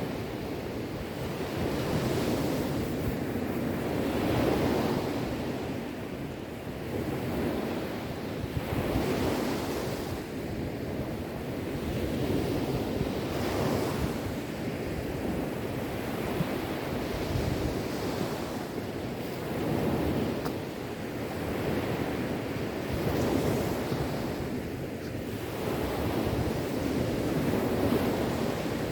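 Sea waves washing onto the shore, the surf swelling and easing every few seconds, with some wind noise.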